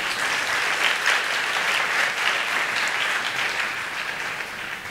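Audience applauding, steady at first and dying down near the end.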